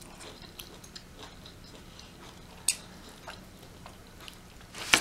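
Close-up chewing and mouth smacks of a person eating rotisserie chicken, with scattered small clicks. There is one sharp smack about two and a half seconds in and a louder one near the end.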